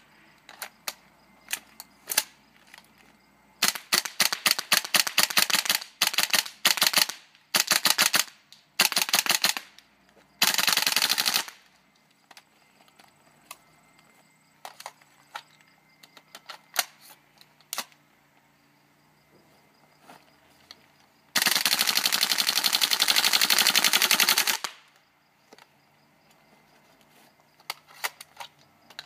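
GHK M4 gas blowback airsoft rifle firing: single shots and quick strings of shots, a one-second full-auto burst, and later a full-auto burst about three seconds long, each shot a sharp crack with the bolt cycling.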